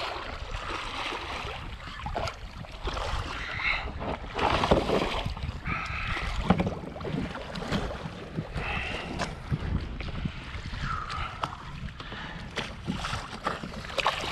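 Water splashing and lapping at a kayak's side as a hooked red drum is brought alongside and landed, with wind buffeting the microphone.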